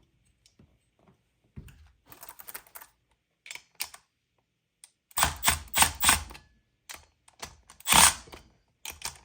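Cordless drill with an impact bit run in several short bursts to back out the clutch bolts of a Zenoah G320 engine, the loudest bursts about five to six and a half seconds in and again near eight seconds, with clicks and clatter of metal tools being handled.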